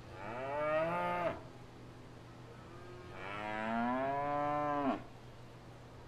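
Cow mooing twice: a short moo, then a longer one about two seconds later, each ending abruptly. A faint steady low hum runs underneath.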